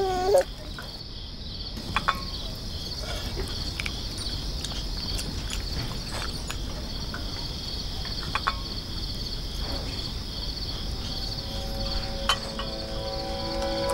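Crickets chirping, a steady, evenly pulsing trill, with a few light clinks scattered through. Soft sustained music notes come in near the end.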